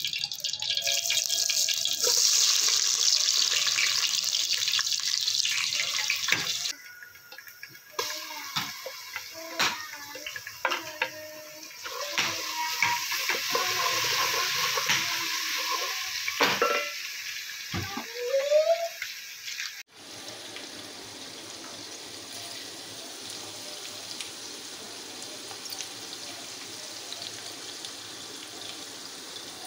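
Sliced onions frying in hot oil in a metal pot, sizzling, with a spoon knocking and scraping against the pot now and then. About two-thirds of the way in it drops to a quieter steady sizzle as carrots, peas and tomato cook.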